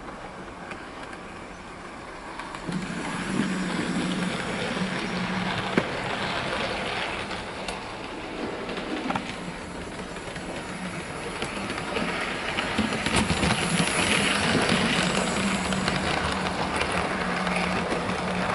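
Hornby OO gauge H Class model steam locomotive running with a rake of three coaches: a steady motor hum with rattling wheels and a few clicks over the track, getting louder as the train comes closer.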